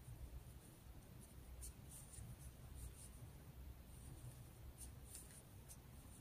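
Faint, irregular scratching and soft ticks of a metal crochet hook catching and drawing combed cotton yarn through the stitches.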